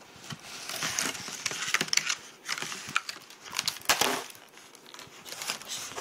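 Plastic wrapping being crinkled and torn off a box, an irregular rustling with scattered sharp crackles and clicks.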